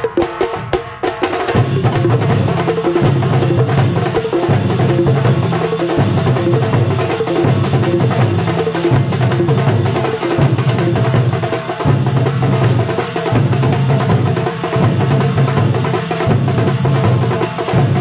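Thambolam drum troupe playing live: a loud, steady, driving beat with a repeating tune over it. The low beat is missing for about the first second, then comes in and keeps going.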